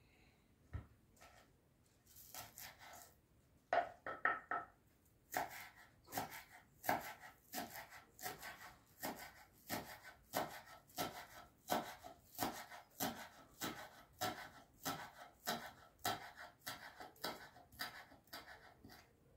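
Knife chopping on a wooden cutting board: a few scattered knocks, then a steady run of strokes about two a second that stops near the end.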